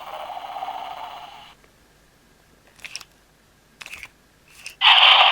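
Electronic sound effects from a Spin Master Armored Toothless toy dragon's small speaker, set off at random by tilting the toy. A growl fades out about a second and a half in, two small handling clicks follow, and near the end a loud hiss starts.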